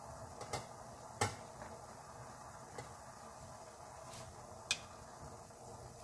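Shabu-shabu broth bubbling at a boil in a stainless steel pot, with four sharp clicks and taps, the loudest about a second in, as mushrooms are set into the pot by hand.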